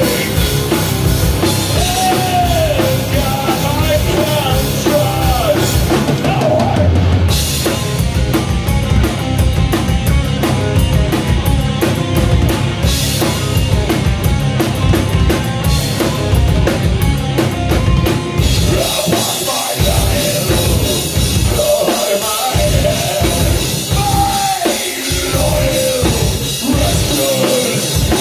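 Live heavy metal band playing loudly: distorted electric guitars, bass guitar and a drum kit driving the song, heard from the audience floor of a small club.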